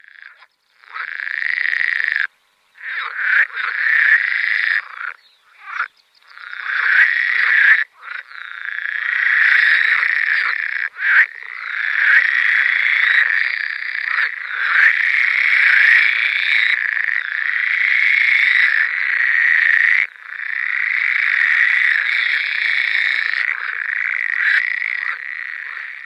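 A chorus of frogs calling densely and loudly, with the sound cutting out abruptly for a moment a few times in the first half.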